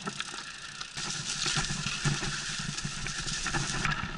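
Mountain bike rolling over a gravel track: rough tyre crunch and rattle with wind rushing over the camera microphone, getting louder about a second in.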